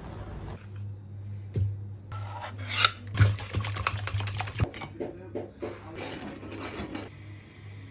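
Kitchen utensil scraping and clinking against a bowl, with a few sharp knocks about one and a half, three and four and a half seconds in.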